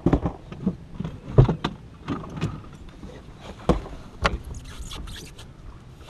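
Irregular knocks and bumps of handling on a boat deck, a few of them sharp and loud, most of all about a second and a half in and near four seconds, thinning out toward the end.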